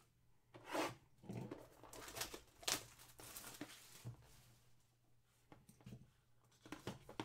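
Cardboard trading-card boxes being handled, slid and picked up: a string of short rustles and scrapes, the loudest about two and a half seconds in, then a few softer clicks near the end.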